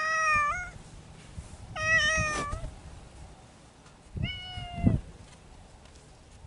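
Cats meowing: three drawn-out meows about two seconds apart, each bending down in pitch at its end. Two low thumps come during the third meow.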